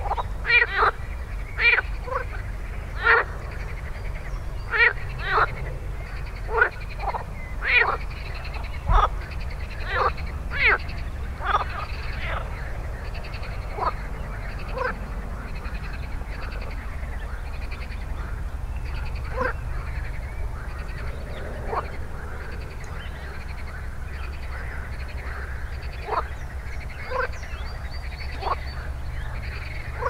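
Frogs croaking in a chorus: loud single croaks about once a second for the first dozen seconds, thinning out to occasional calls later, over a steady background of more distant calling.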